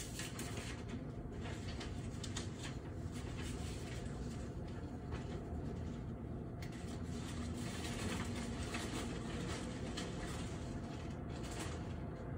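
Steady city ambience: a low, even hum of distant traffic.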